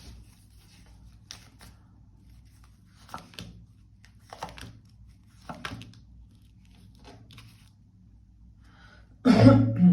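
Tarot cards being handled on a table: soft rustles, slides and light taps in short separate bursts, with a short loud burst near the end.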